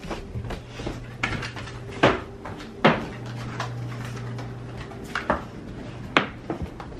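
A series of sharp knocks and thumps, the loudest two a little under a second apart early on and another near the end, as someone walks down carpeted stairs holding the camera. A steady low hum runs underneath.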